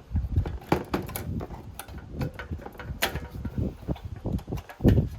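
Cable plugs being wiggled out of the connectors on a NAS controller board: irregular plastic clicks, rattles and knocks, with a louder thump near the end.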